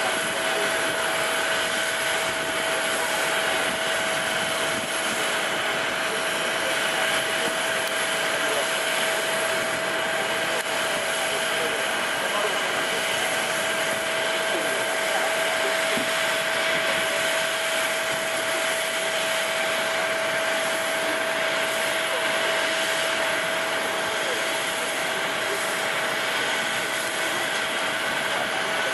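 Jet aircraft turbines running steadily: a constant whine with several steady tones over a broad rushing hiss.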